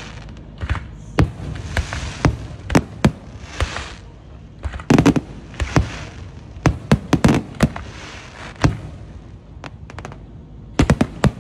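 Aerial firework display shells bursting in an irregular series of sharp bangs, with a hiss between them. The bangs come thickest in a cluster about five seconds in, again a couple of seconds later, and in a quick run near the end.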